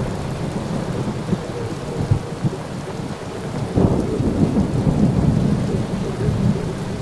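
Thunderstorm sound effect: low rolling rumbles of thunder over a steady rain-like hiss, with a new rumble swelling about four seconds in.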